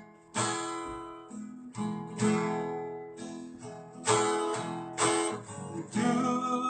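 Acoustic guitar strumming chords, each strum ringing out and fading before the next, about five strums spaced a second or two apart.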